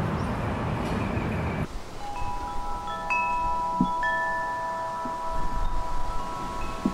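A rushing wind-like noise for about the first second and a half, then chimes struck one after another. Each clear tone at its own pitch rings on for several seconds and overlaps the others.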